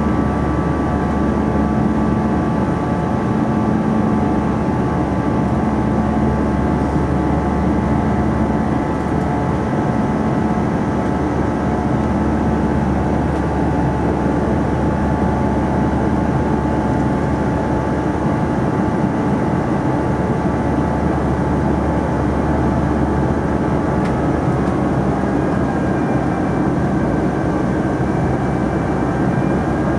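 Airbus A321 cabin noise heard from a window seat by the wing during the climb: the steady rush of airflow and jet engine drone, with a few steady whining tones over it. A low hum pulses about every second and a half through the first dozen seconds, then evens out.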